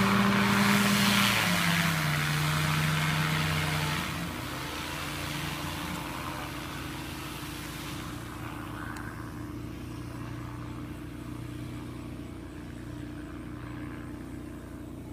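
Powered parachute's engine and pusher propeller running during taxi. It is loud for the first four seconds, with the engine note stepping down in pitch about a second and a half in, then runs quieter and steady.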